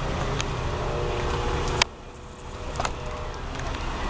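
Low, steady rumble of a vehicle engine running, with faint steady tones above it; it breaks off abruptly with a sharp click just under two seconds in, then a fainter rumble builds again.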